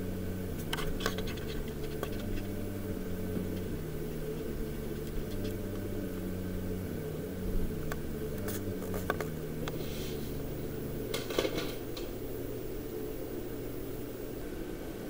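Quiet low drone music, its sustained notes shifting slowly between a few pitches, with scattered light clicks and rustles over it.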